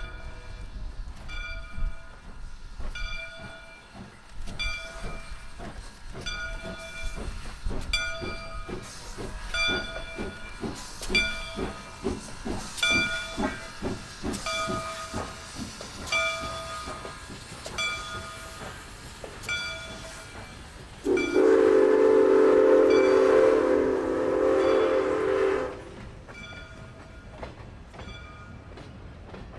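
Soo Line 1003, an ALCO 2-8-2 Mikado steam locomotive, running by at speed: its bell rings steadily, about once a second, over the beat of its exhaust. About 21 seconds in, a loud steam whistle sounds a chord for about five seconds.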